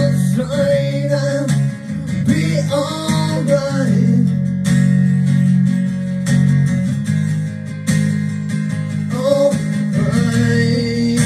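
A recorded song playing: strummed acoustic guitar chords with a singing voice. The voice is heard in the first few seconds and again near the end, with the guitar carrying the stretch between.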